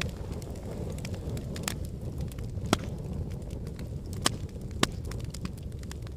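Wood fire burning in a fireplace: a steady low rumble of the flames with scattered sharp pops and crackles, three louder snaps standing out in the middle stretch.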